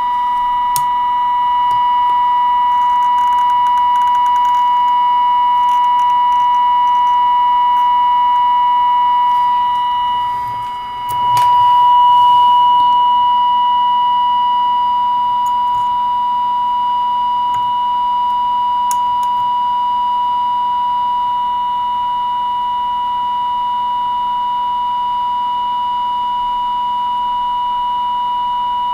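Steady high test tone from a Healing 503E valve radio's loudspeaker. It is the signal generator's modulation tone, received while the set is being aligned and its trimmers peaked. The tone dips briefly about eleven seconds in, then comes back a little louder.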